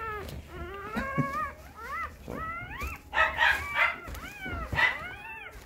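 Dogs whining and squealing in a run of short, high-pitched cries that rise and fall, one after another, louder about three seconds in.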